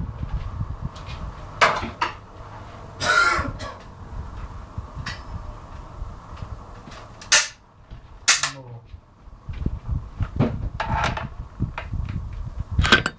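Several short coughs of a man practising with a cigar, between knocks and low rumbling handling noise on the microphone.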